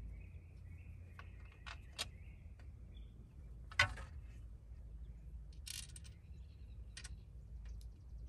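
Sharp clicks and knocks of wooden easel rails and small metal bolts being handled and fitted together during assembly, the loudest knock a little under four seconds in. A steady low rumble runs underneath, with faint bird chirps in the first couple of seconds.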